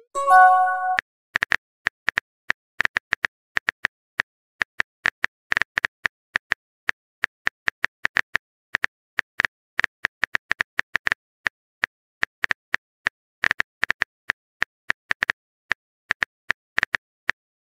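Simulated phone-keyboard typing clicks: many quick, irregular taps as a text message is typed. Right at the start there is a short message-alert chime.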